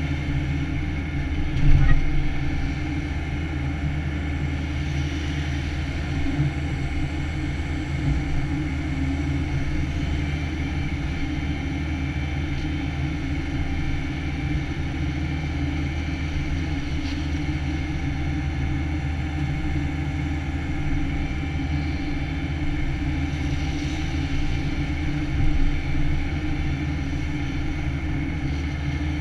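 Takeuchi TB175 compact excavator's diesel engine and hydraulics running steadily under load, heard from inside the cab, while the machine strips topsoil. A single sharp thump about two seconds in and a smaller one near the end.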